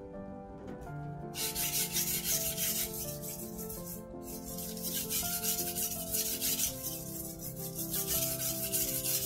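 Steel blade of a Global kitchen knife being stroked back and forth on a wet whetstone: repeated scraping strokes that begin about a second in. Background music plays under it.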